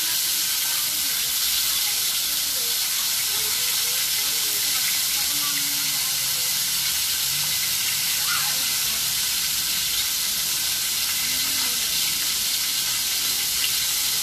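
Whole small fish (matambaka, bigeye scad) frying in shallow hot oil in a wok: a steady, even sizzle.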